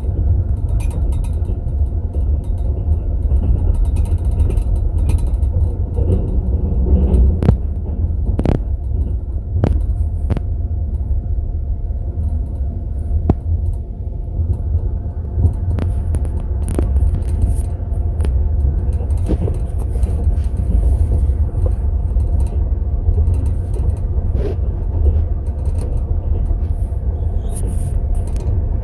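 Passenger train compartment in motion: a steady low rumble of the coach running on the rails, with scattered sharp clicks and clinks at irregular intervals.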